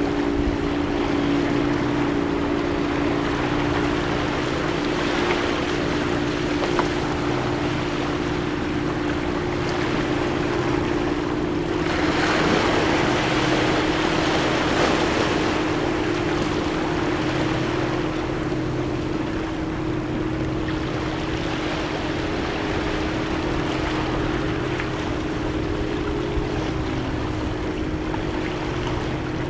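Sea waves washing over seaweed-covered shore rocks, with a bigger wave breaking about twelve seconds in. A steady engine drone runs underneath, its pitch shifting slightly near the end.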